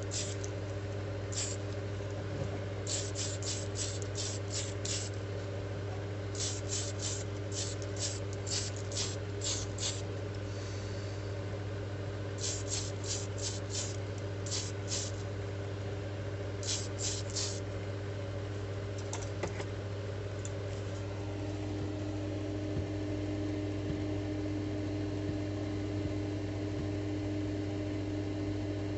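Paint being airbrushed onto a diecast car body in quick short spurts, clusters of brief hisses a few per second, over the steady hum of a small airbrush compressor. The spurts stop about two-thirds of the way through, leaving the compressor hum.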